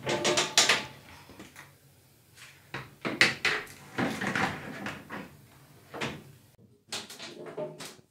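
Gas cooker oven door being opened and a metal baking tray slid onto the oven rack, with a series of knocks and metal clattering, the loudest around the start and again about three to five seconds in.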